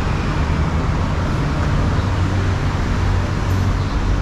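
Steady road traffic from an adjacent city street: a continuous low rumble of passing cars.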